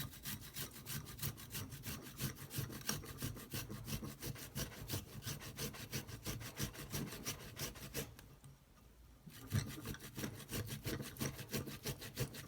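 Fresh ginger root rasped back and forth on a hand grater in quick, even strokes, with a pause of about a second past the middle.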